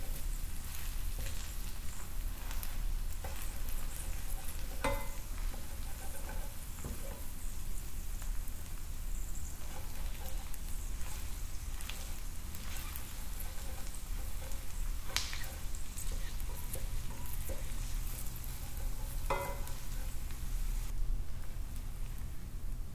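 Food sizzling and frying in a pan, stirred now and then, with three sharp ringing clinks against the pan; the high crackle thins out near the end.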